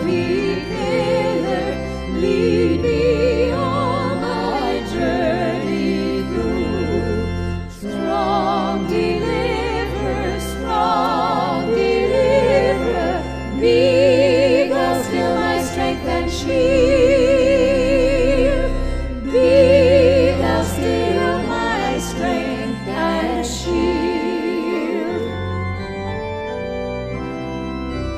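A small choir sings a hymn verse with pipe organ accompaniment. The voices stop about 25 seconds in, and the organ plays on alone with sustained chords.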